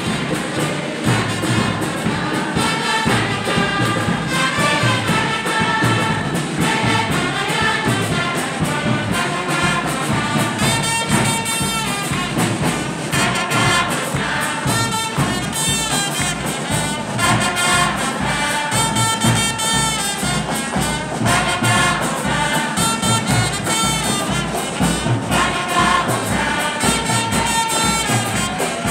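Church choir and congregation singing a lively hymn together over a steady drum beat, with hand-clapping.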